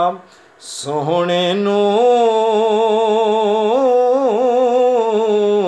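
A man singing a Punjabi naat unaccompanied. A short pause and a quick breath, then one long held note that wavers in an ornamented turn about four seconds in.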